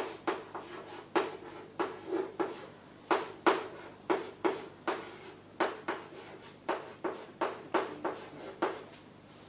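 Chalk writing Chinese characters on a chalkboard: a quick, uneven run of short taps and scrapes, one per stroke, stopping shortly before the end.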